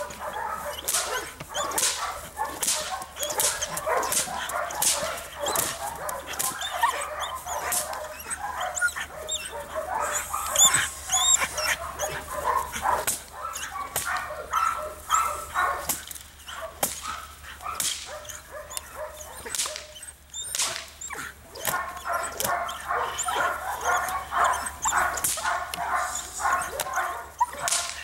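Belgian Malinois barking rapidly and repeatedly, about two barks a second with some whining mixed in: a dog agitated in protection (bite-work) training. There is a brief lull about two-thirds of the way through.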